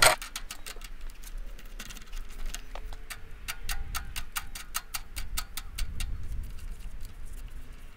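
Light, sharp metallic ticks in an even series, about three to four a second, from a wing nut being worked onto the threaded stud of a Honda GX390 air-filter cover.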